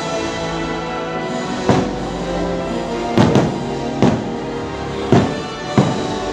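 Fireworks-show music with held notes, over which about six sharp firework bangs go off, two of them in quick succession about three seconds in.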